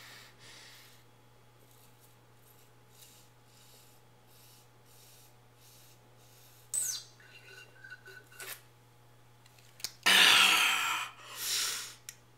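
A person gulping an energy drink straight from a punctured can, with soft repeated swallowing sounds and a sudden short slurp about seven seconds in. Near the end come two loud, heavy gasping breaths as she comes up for air.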